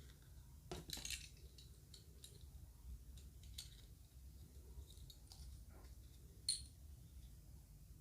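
Faint clicks and light handling noises of small plastic toy parts and egg capsule pieces, with a cluster of clicks about a second in and one sharper click about six and a half seconds in.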